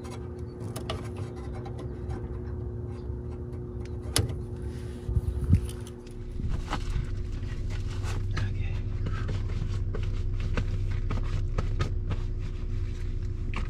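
Scattered clicks and rubbing as hands fasten plastic cable ties around a cable, over a steady low rumble with a faint constant hum.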